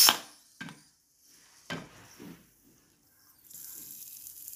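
Pressure cooker's whistle weight being tipped up with a spoon handle, letting the trapped steam out in short hissing spurts. The first is the loudest, and a steady fainter hiss follows from about three and a half seconds in: the leftover pressure being released after cooking.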